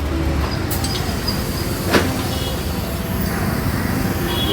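Steady rumble of passing motor traffic, with one sharp click about two seconds in.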